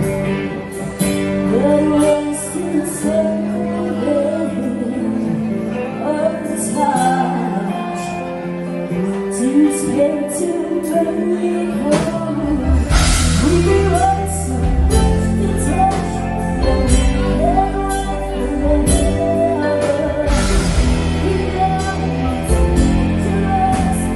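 A song: a sung melody over instrumental backing with a steady beat. A heavy bass part comes in about halfway through and fills out the sound.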